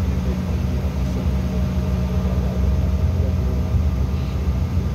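Cabin noise inside a CRJ900 regional jet on the ground: a steady low rumble from the rear-mounted jet engines and air systems, with a faint steady higher hum over it.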